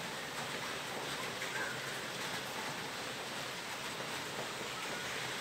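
A steady, even hiss of background noise, with no distinct events.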